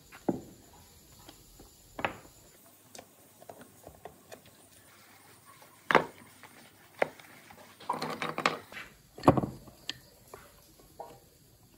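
Bamboo sticks and pine blocks knocking and clacking as the sticks are handled and pressed into the gaps between the blocks: single sharp wooden knocks every second or two, with a quick run of clatter and rubbing about eight seconds in.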